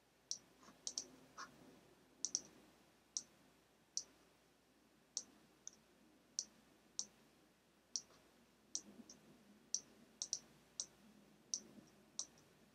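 Faint, irregular clicking of a computer pointing device, about one or two clicks a second with some in quick pairs, as shapes are selected and nudged into line.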